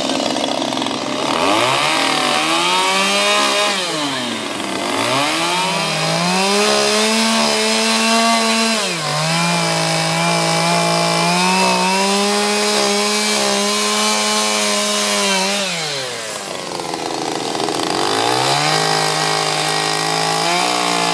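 Chainsaw cutting into a wooden carving, the engine revved up and let back down again and again. It revs up about a second in, drops briefly near four seconds, holds high with a short dip near nine seconds, falls back to idle around sixteen seconds, and revs up again a couple of seconds later.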